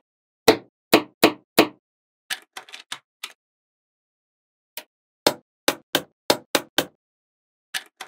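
Magnetic balls clicking as they snap onto one another, one at a time: about a dozen sharp, irregularly spaced clicks, with a softer rattle of several quick ticks between about two and three seconds in.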